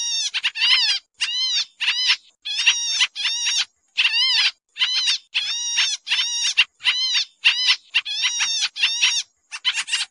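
Pied triller (kapasan kemiri) calling: a rapid series of short calls, two or three a second with brief gaps, each note arching up and down in pitch.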